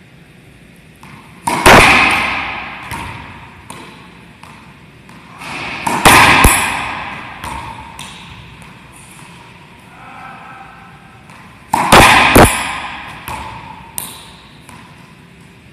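Racquetball shots in an enclosed court: three times, a sharp crack of racquet on ball followed closely by the ball slapping the wall, each echoing for a second or two off the court walls. Lighter ticks of the ball bouncing come in between.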